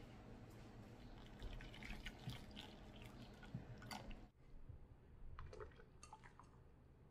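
Water poured from a metal pot into a glass bowl, faint splashing and dripping with small clicks, which drops away about four seconds in, leaving a few light clinks.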